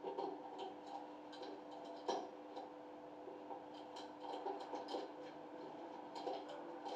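Small irregular clicks and taps of hard metal and plastic parts as a concealed shower mixer valve is worked on by hand, with one sharper click about two seconds in, over a steady hum.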